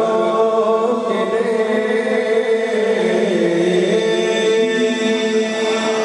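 Two men singing a Pashto naat, an Islamic devotional hymn, unaccompanied into microphones, drawing out long held notes together.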